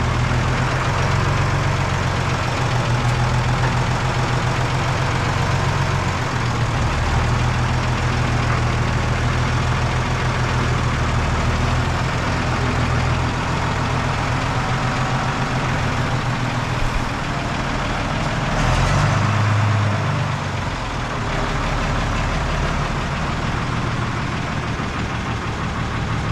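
Fendt tractor's diesel engine running steadily while it works a Stoll front loader stacking round bales. Nearly twenty seconds in, the engine note changes and gets louder for a couple of seconds as the loader takes the load.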